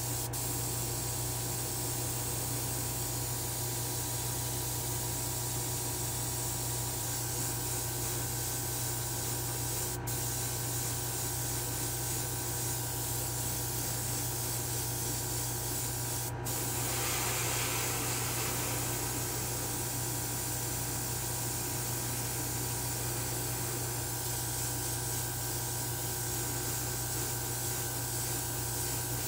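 Airbrush hissing steadily as it sprays coats of candy red paint, over the steady hum of a spray booth fan. The hiss swells for a couple of seconds just past the middle and drops out for an instant twice.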